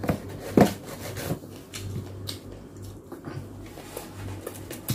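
Close-miked chewing and mouth sounds from eating roast pork knuckle (lechon pata), with scattered short crunchy clicks, the sharpest about half a second in and another just before the end, over a low steady hum.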